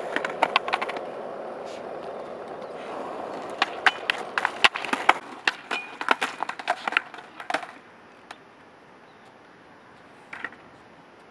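Skateboard being ridden and tricked onto a bench: wheels rolling on the court surface with a run of sharp clacks as the board pops, strikes the bench and lands. The clacks come in two spells, a short one at the start and a longer one in the middle, then it goes quiet apart from one short scrape near the end.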